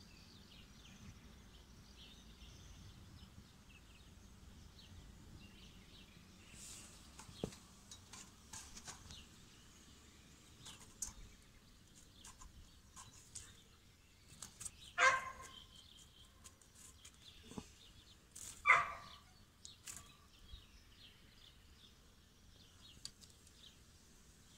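Mostly quiet background with faint scattered clicks, broken by two short, louder animal calls about fifteen and nineteen seconds in.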